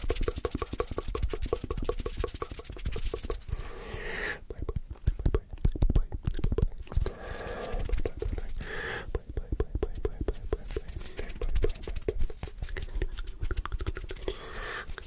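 Close-up ASMR hand sounds: rapid, dense clicking and rubbing, broken by a few short bursts of unintelligible whispering.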